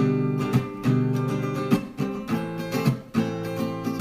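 Acoustic guitar strumming chords in an instrumental gap of a gentle worship song, with no singing.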